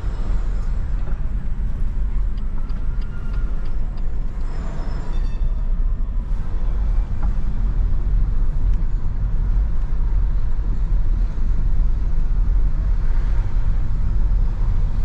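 Cabin noise of a BMW 218i Active Tourer (F45) driving slowly over stone-paved city streets: a steady low rumble of tyres and engine heard from inside the car.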